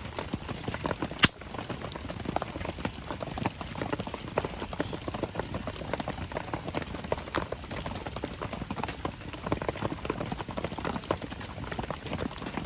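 Wood campfire crackling steadily with dense small snaps, and one sharp loud pop about a second in.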